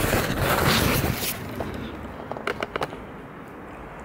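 Handling noise: fabric brushing and scraping over the microphone for about a second as the handheld camera is moved against clothing, then a few light clicks about two and a half seconds in.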